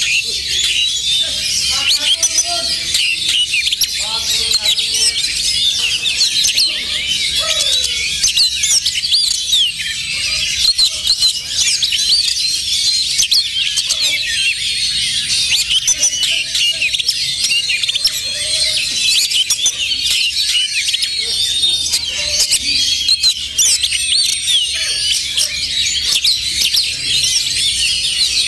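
Oriental magpie-robins singing in competition, a dense overlapping chorus of fast chirps, whistles and trills that never lets up.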